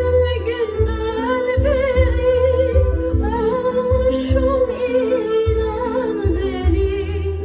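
Music: a song with a singing voice over a steady bass beat.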